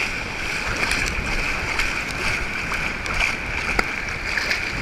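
Whitewater surf rushing and splashing around a bodyboard, heard close to the water surface as a steady hiss with small splashes from a hand paddling.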